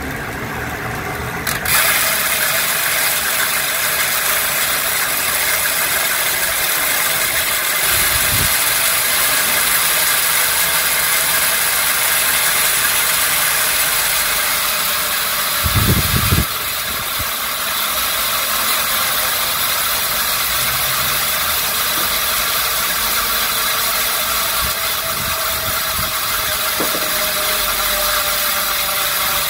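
Rear freehub of an Enve SES 4.5 wheel buzzing as the wheel freewheels: a loud, dense stream of ratchet clicks that sets in about two seconds in and holds steady. There is a brief low thump around eight seconds in and another around sixteen seconds in.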